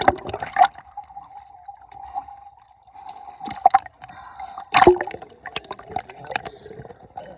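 Water sloshing and splashing against a handheld camera as it moves from underwater to the surface, with several sharp splashes and bubbly clicks, the strongest about 3.5 and 5 seconds in, over a steady faint hum.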